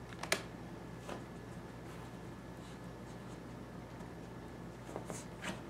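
A dog chewing and tearing at a plush stuffed toy: short scratchy rips and rubs of fabric, a sharp one just after the start and a few more near the end, over a faint steady hum.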